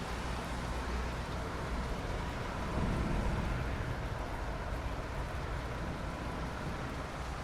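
Steady rain, an even hiss over a low rumble, swelling briefly about three seconds in.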